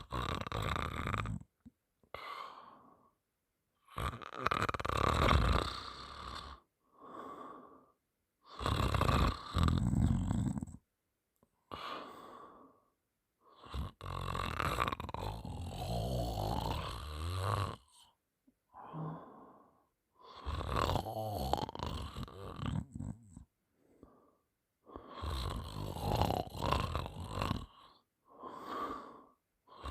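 A sleeping person snoring, with a loud snore about every five seconds and shorter, quieter breaths between them.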